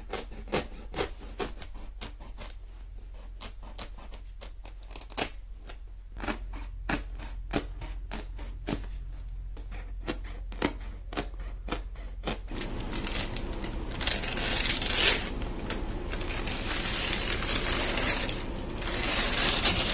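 Sharp knife cutting through the woven backing of a piece of carpet from the back, a string of irregular small snaps as the blade severs the backing threads. About twelve seconds in it gives way to louder rustling and rasping as carpet is handled, with a longer tearing noise near the end.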